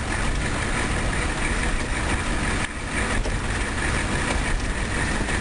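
Steady rumble of a moving car heard from inside the cabin: engine and tyre noise on the road.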